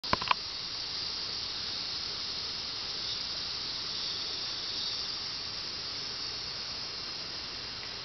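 A steady high-pitched hiss of rainforest insects, with two sharp clicks at the very start.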